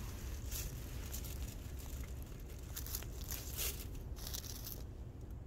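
A run of short crinkling, rustling noises, most of them bunched in the second half, over a steady low rumble.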